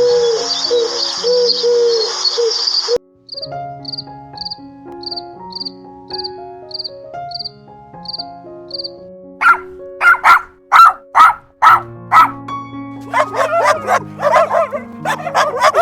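A dog barking repeatedly over background music, the barks coming faster and closer together near the end. Before the barking, a bird cooing is cut off about three seconds in and followed by a run of about ten short, evenly spaced high chirps.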